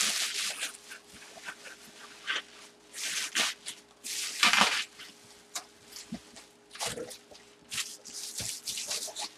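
Plastic bubble wrap rustling and crinkling in irregular bursts as it is handled and wrapped for shipping. A faint steady hum runs underneath.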